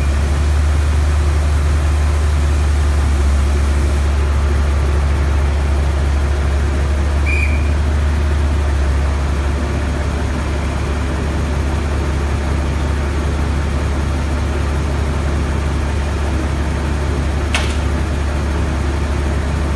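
A large engine running steadily with a deep low drone that eases slightly about halfway through. Two short high chirps and one sharp click are heard over it.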